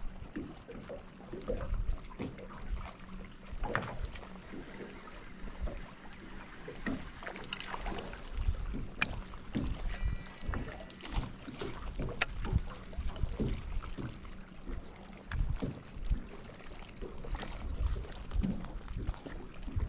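Small boat on a creek: water slapping and knocking irregularly against the hull, with a few sharp clicks and a faint steady hum underneath.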